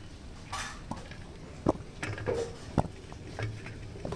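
Cubes of clear glycerin soap base dropped by hand into a small steel bowl, giving a handful of separate light knocks and clinks against the metal.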